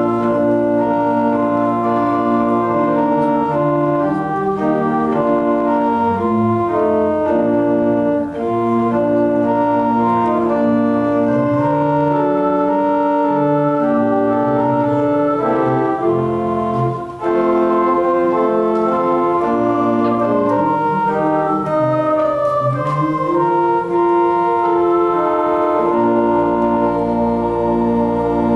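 Organ playing a slow piece in long held chords. Near the end a deep low note joins the final held chord.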